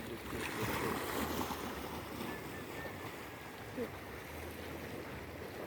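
Seawater washing against the shore: a steady wash that swells a little about a second in.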